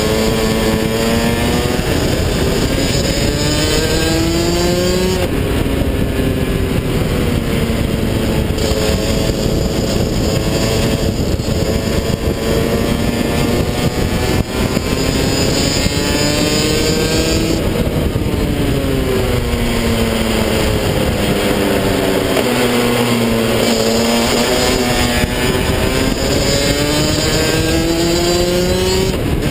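Rotax DD2 125cc two-stroke kart engine driven hard on track, its revs climbing and falling several times, dipping lowest about three quarters of the way through.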